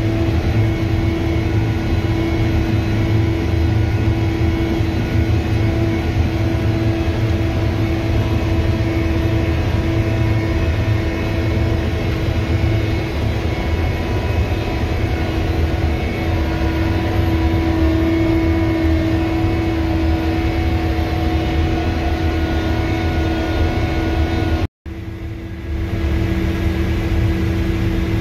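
Steady engine drone and low rumble inside a farm machine's cab as it drives across a rough field, with a constant whine over it. Near the end the sound cuts out for an instant and a slightly lower, steady engine hum follows.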